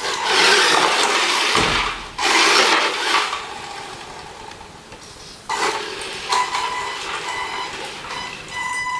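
Tamiya TL-01 radio-controlled truck driving on a tiled floor, its 540 electric motor and gearbox whining and its big tyres scrubbing the tiles. The noise is loud for the first three seconds, fades in the middle, then comes back suddenly about halfway through as a steady-pitched whine that rises and falls.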